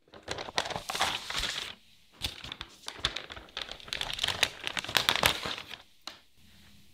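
Greaseproof paper crinkling as it is handled around a sheet of frozen, rolled cookie dough. It comes in two stretches, with a short pause about two seconds in, and stops near the end.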